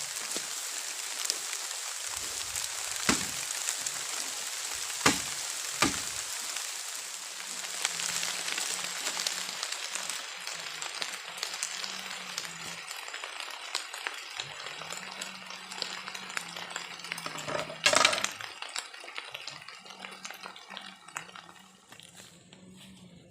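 Rain falling in a steady hiss that thins out toward the end, with a few sharp knocks, the loudest near the end.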